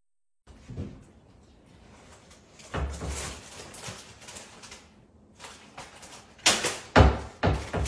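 Kitchen cabinet door knocking and banging against its frame: one knock about three seconds in, then three loud bangs in quick succession near the end.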